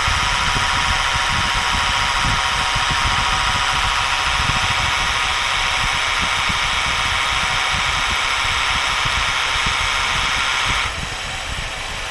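Car air-conditioning compressor running engaged over the idling engine, making an abnormal loud, steady, high-pitched whirring noise. The whir cuts off abruptly about eleven seconds in, as the compressor disengages, leaving the engine idling.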